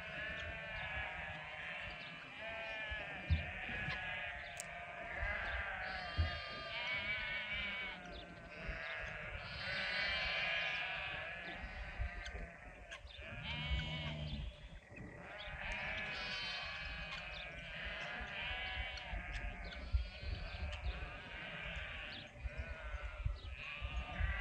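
A large flock of sheep bleating, with many calls overlapping continuously.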